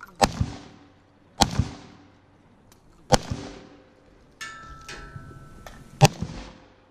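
Century Arms C39 V2 AK-47-pattern rifle in 7.62×39 fired in slow single shots: four sharp reports spaced one to three seconds apart, each trailing off in a short echo.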